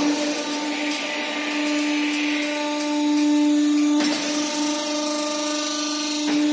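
Gas-cylinder homogenizer's electric drive running, a steady hum as it rotates a bundle of gas cylinders, with a brief knock about four seconds in.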